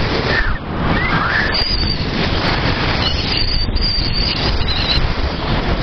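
Wind rushing over the microphone over the running single-cylinder engine of a Honda CG 125 Fan motorcycle at road speed, its exhaust run without the baffle.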